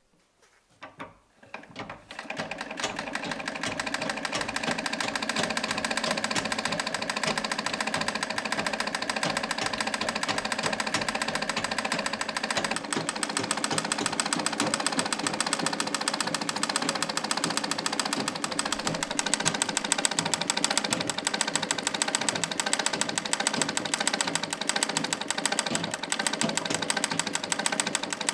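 Vintage sewing machine running at speed, a rapid, even mechanical clatter that starts about two seconds in after a couple of faint clicks. It runs without squeaking, freshly oiled.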